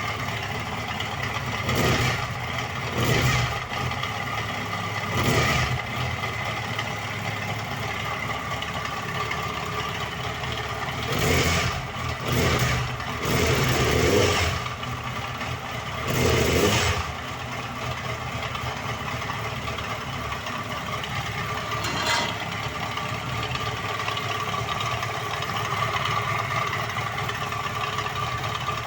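Yamaha FZ1 inline-four engine idling, blipped in short revs several times, mostly in the first seventeen seconds. It is presented as the sound of worn crankshaft bearings.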